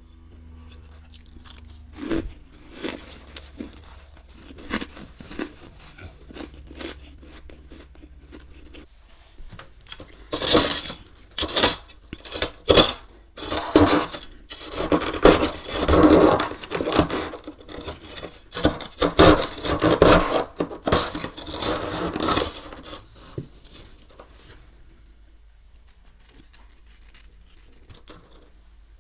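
Metal spoon scraping and digging through thick freezer frost, crunchy and rasping. It starts with scattered strokes, then turns to loud, dense scraping for about thirteen seconds in the middle before easing off again.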